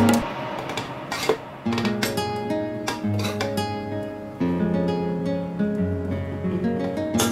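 Music of strummed acoustic guitar, the chords changing every second or so.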